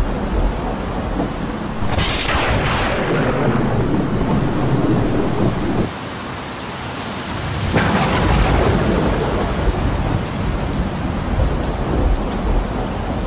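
Thunderstorm with steady heavy rain: a sharp thunder crack about two seconds in that rolls off into low rumbling, a short lull, then a second crack and rumble about eight seconds in.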